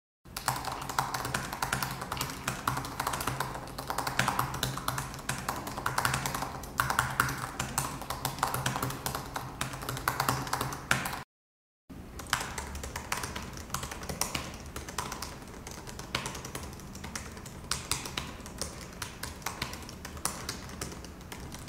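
Fast typing on a 2017 MacBook Pro's butterfly-switch keyboard, a dense run of sharp key clicks. After a break of silence about 11 seconds in, typing goes on on a 2018 MacBook Pro keyboard, whose clicks are quieter: a silicone membrane under its keycaps damps them.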